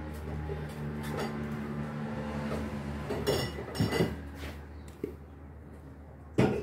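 Dishes and glassware being handled: a couple of ringing clinks around the middle and a sharper knock near the end, over a steady low hum that fades about halfway.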